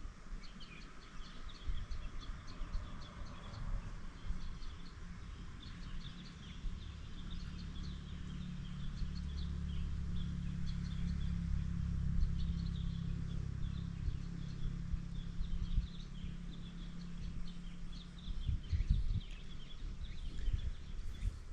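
Birds chirping over and over in the background, with short high calls throughout. A low steady hum rises in the middle and then fades away.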